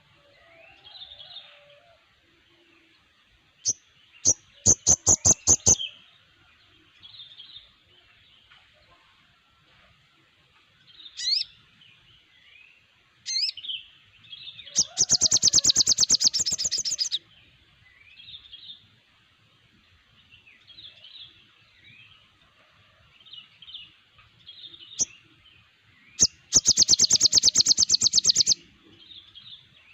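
A chorus of sogon birds calling. Three loud, rapid, rattling trills of one to two seconds each come about five seconds in, in the middle and near the end, with softer chirps and short notes between them.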